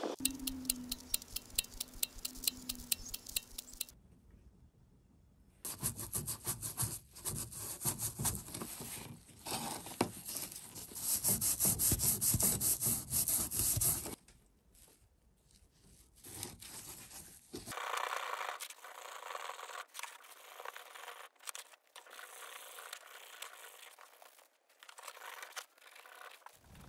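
Green abrasive scouring pad scrubbing over small black-painted metal label-holder pulls in quick back-and-forth strokes, scuffing the fresh paint. The rubbing comes in several separate stretches and is loudest about halfway through.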